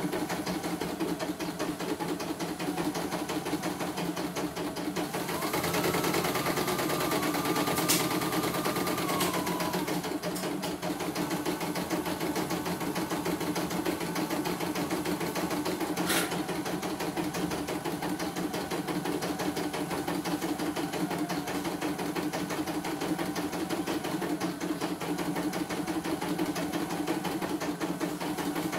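CNY E900 embroidery machine stitching a test run after repair, its needle mechanism running with a steady, even clatter. A higher whine comes in for about five seconds near the start, with two sharp clicks, one about eight seconds in and one about sixteen seconds in.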